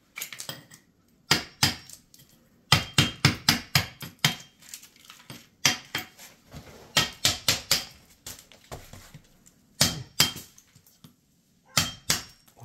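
Claw hammer striking a chisel in runs of quick, sharp blows with short pauses between, chipping leftover pieces of rotten wood flooring off the concrete subfloor.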